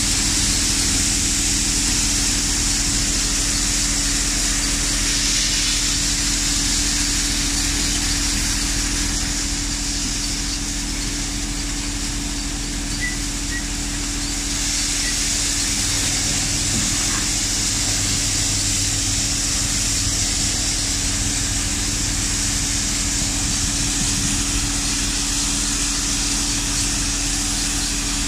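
Basket-model thresher running steadily while dry crop is fed into it by hand: a constant machine hum with a hiss over it, the hiss easing off for a few seconds midway.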